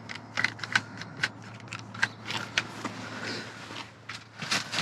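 Quick, irregular clicks, taps and rattles of drink containers and plastic being handled and knocked together, over a low steady hum.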